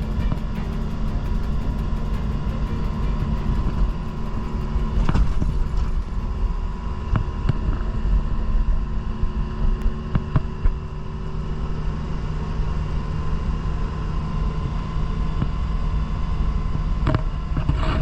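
A Honda Beat running on the road, a steady drone of engine and road noise with a few light knocks and rattles.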